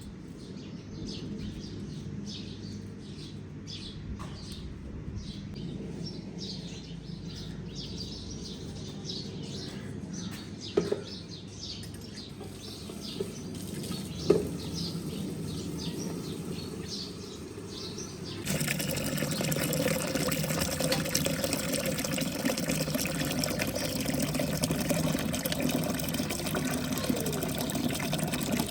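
Birds chirping rapidly over a low steady hum, with two sharp knocks in the middle. About eighteen seconds in, a steady, dense rush of heavy rain starts abruptly and keeps on.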